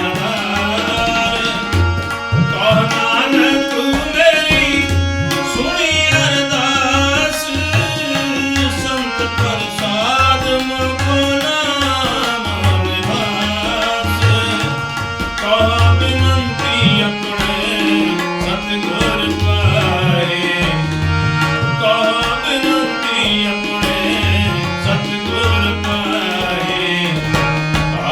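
Sikh kirtan music: tabla playing a steady, repeating rhythm under a melody line that bends in pitch.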